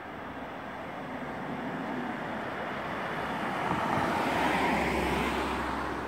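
A car driving past close by, its tyre and engine noise swelling to a peak about four seconds in and then fading.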